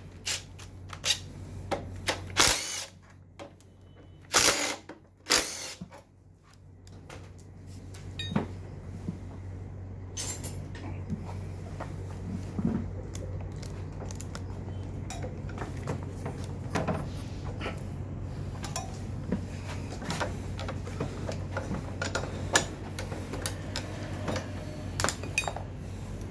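A power tool running in three short bursts, loosening bolts on a scooter's front brake caliper. Scattered small metal clicks and knocks of tool and part handling follow over a steady low hum.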